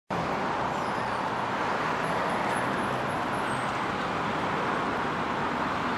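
Steady hum of city road traffic.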